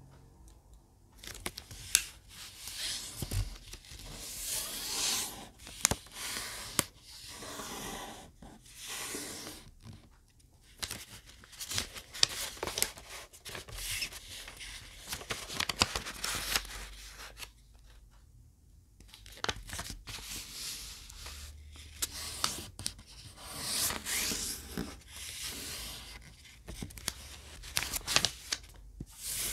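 Sheets of thin colored origami paper being handled and folded by hand: rustling and sliding on the table in uneven spells, with short sharp crackles as creases are pressed down.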